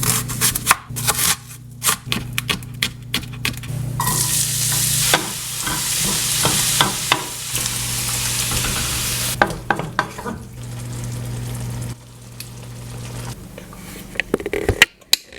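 Food frying in a pan while being stirred, the utensil clicking and scraping against the pan. The sizzle grows loud about four seconds in and eases back about halfway through, over a steady low hum.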